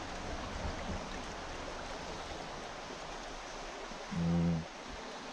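Shallow creek running over rocks, a steady rushing. About four seconds in there is a short low hum lasting about half a second.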